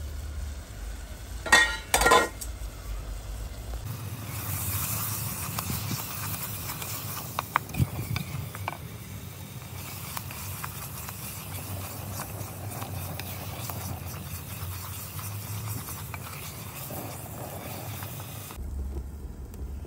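A wooden spoon stirring and scraping thick spice masala frying in an aluminium pot, with a steady sizzle. Two loud knocks come about a second and a half and two seconds in, before the stirring starts.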